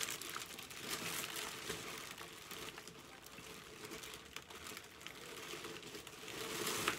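Clear plastic sleeve of a stamp set crinkling as a hand smooths it down, with soft rustles and small clicks. It is louder in the first second, then quieter.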